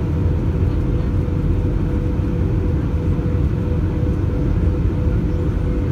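Airbus A319 cabin noise in flight: a steady low rumble of the engines and the air rushing past, with a thin, steady hum running through it.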